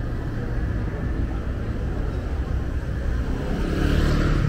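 Street traffic rumbling, with a motor vehicle's engine growing louder as it passes close near the end.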